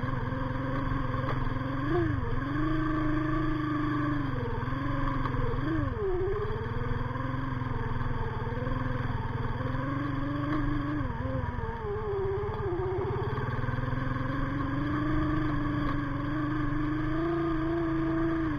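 Sigma 250cc motorcycle engine running at low speed, its revs rising and falling with the throttle. There are quick blips about two and six seconds in, a dip around the middle, then steadier running.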